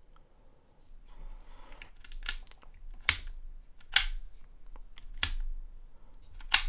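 Daiwa Tatula TW 300HL baitcasting reel being worked by hand: four sharp mechanical clicks about a second apart as the thumb bar is pressed to open the T-Wing line guide and the clutch snaps back, with softer handling clicks before them.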